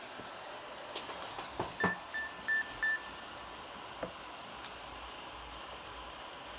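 Four short, evenly pitched electronic beeps from a Nokia N8-00 mobile phone, about two seconds in, with a few soft clicks around them, over a low hiss.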